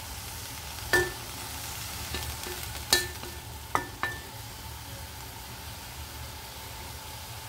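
Bacon and string beans sizzling in a nonstick pan with a little boiled water added, with four sharp knocks of a wooden spatula against the pan in the first half.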